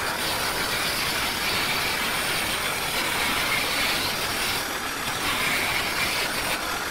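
350-watt mini wood lathe running with a makeshift hand chisel cutting into a spinning piece of soft timber: a steady, rough scraping noise that starts abruptly and holds even.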